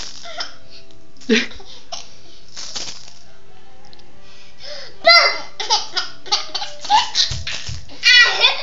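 A small child laughing: one short sharp vocal sound about a second in, then from about five seconds in a quick run of short, high giggles ending in a longer peal of laughter.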